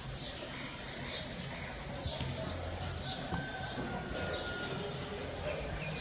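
Birds chirping: short, high chirps repeating about once a second over a low steady hum.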